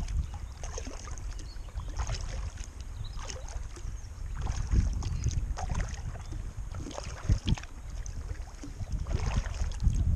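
Kayak paddle blades dipping and splashing into calm water, a stroke roughly every second and a half, over a low rumble of wind on the microphone.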